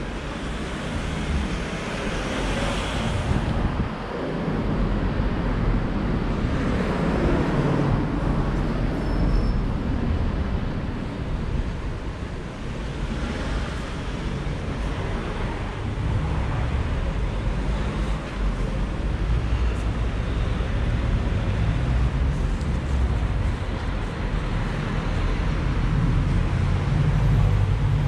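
Street traffic: cars passing one after another, each swelling and fading, over a steady low rumble.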